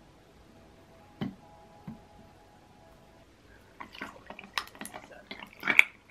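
Bottled iced tea poured from a plastic bottle into a glass mug full of ice cubes, with the ice clicking and crackling as the liquid hits it, starting about four seconds in. A single light knock from handling the bottle comes about a second in.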